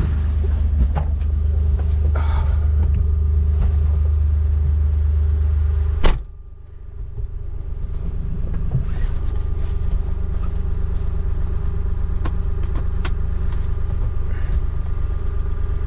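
Avant 860i compact loader's diesel engine running steadily with a deep rumble. About six seconds in there is a sharp click, then the low engine sound drops away and builds back up over a few seconds.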